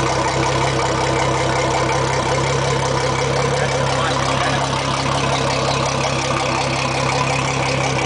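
Twin Mercury Verado 250 hp four-stroke outboard engines idling steadily.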